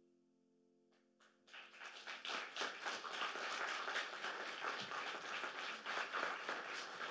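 The last grand piano chord dies away, then a few scattered claps about a second in and audience applause breaking out and going on steadily.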